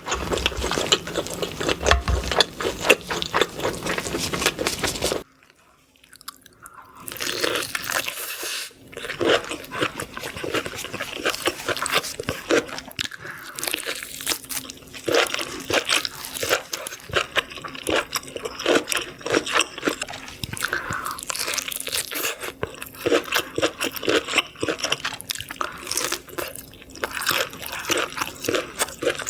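Close-miked eating: a person crunching and chewing seafood, with many quick crackles and bites. The sound drops out briefly about five seconds in, then the chewing resumes.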